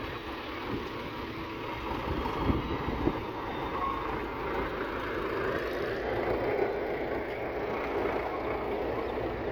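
Diesel engines of a backhoe loader and tractors running steadily at work, with a couple of short knocks about two and a half and three seconds in.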